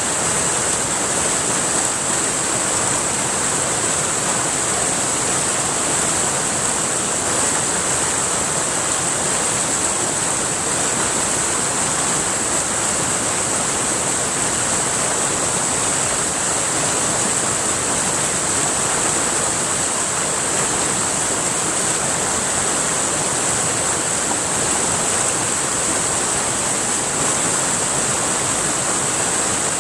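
River water rushing steadily over rocks, with a constant high-pitched whine above it.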